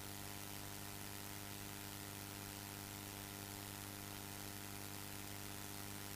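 Faint steady electrical mains hum with an even hiss over it, no other sound.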